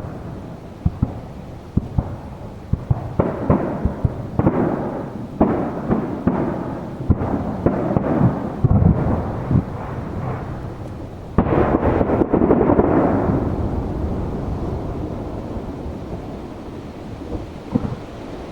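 Aerial firework shells bursting in a rapid run of booms with rolling echoes. A dense, louder volley comes about two thirds of the way through and then dies away in a long rumble.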